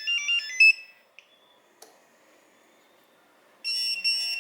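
TD159 alphanumeric paging system: a short tune of stepped electronic beeps that confirms the message was sent ends about a second in, followed by a single click. Near the end the pager starts its receive alert, a steady high pulsing alarm tone, signalling that the message has arrived.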